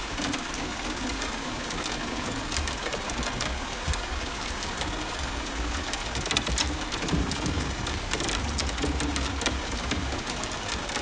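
Playback of a sound effect made by an AI text-to-audio model: a steady, dense noisy patter with scattered sharp clicks and low hollow tones underneath.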